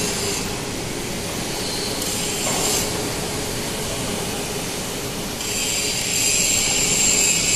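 Motorized slide drive of a welding machine's torch head, jogged from the hand pendant: a high whine and hiss comes in briefly twice, then abruptly about five seconds in and holds, over a steady machine drone.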